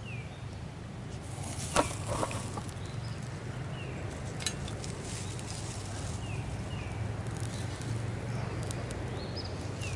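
Twigs being fed into a small metal twig stove over a freshly lit tinder bundle, giving a couple of sharp clicks about two seconds in and a few fainter ones later. Small birds give short falling chirps throughout over a low steady rumble.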